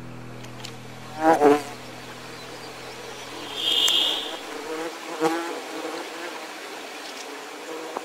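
Flying insects buzzing steadily, with a loud buzz as one passes close about a second in and again about five seconds in. A short high trill sounds near the middle.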